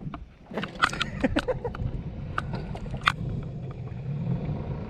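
A quick run of small, sharp clicks and knocks over a steady low rumble, like gear being handled.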